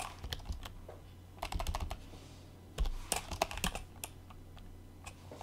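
Typing on a computer keyboard: short runs of keystrokes with pauses between them, over a low steady hum.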